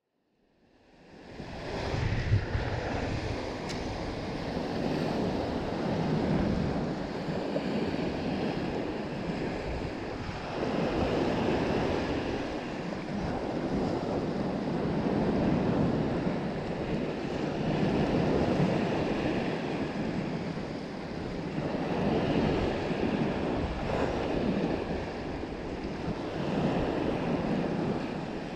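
Small waves breaking and washing up on a sandy shore, swelling and easing every few seconds, with wind on the microphone. The sound fades in from silence in the first second or two.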